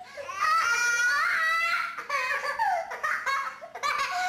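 Young children laughing and squealing with delight: a long high squeal near the start, then several shorter laughs.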